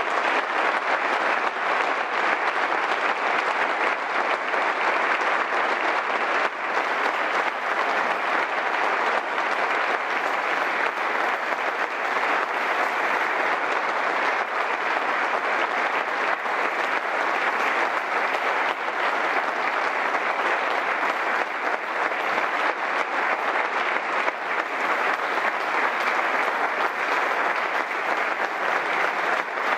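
Sustained applause from a seated audience of a few dozen people, many hands clapping at once, steady and unbroken.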